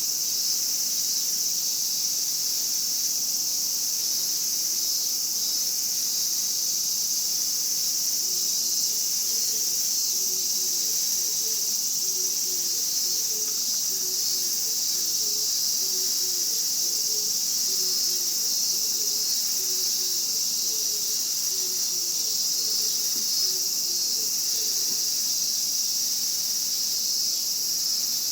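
Chorus of Japanese cicadas, a continuous, steady high-pitched buzzing drone. Faint short low notes repeat underneath through the middle stretch.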